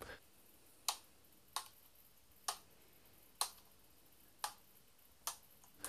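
Six short, sharp clicks about a second apart, irregularly spaced, with near silence in between.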